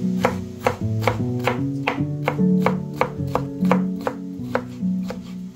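Chef's knife dicing red bell pepper on a wooden cutting board: quick, even knife strikes, about four a second, over acoustic guitar background music.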